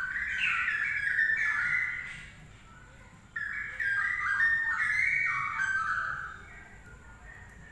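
Straw-headed bulbul (cucak rowo) song: two phrases of quick, stepped, clear whistled notes. The second phrase starts a little over three seconds in.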